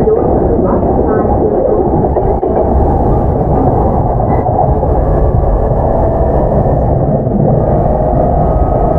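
Onboard running sound of a JR East E233-7000 series electric commuter train in a motor car with Mitsubishi IGBT-VVVF traction equipment: a steady, loud rumble of wheels on rail. A faint steady tone comes in over the second half.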